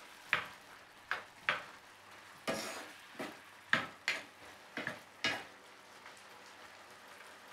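Chopped onion, celery and carrot sizzling in a frying pan while a spatula stirs them, with about ten quick scrapes and knocks against the pan in the first five seconds, then only the faint sizzle.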